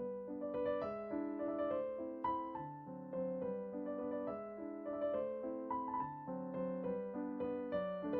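Background piano music: a gentle, steady melody with chords, notes struck a few times a second.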